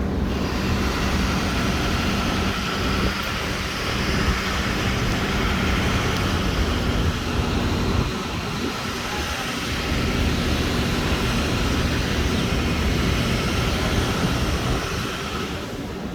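Steady city street noise of vehicle engines running, with a low engine hum that drops away about six seconds in.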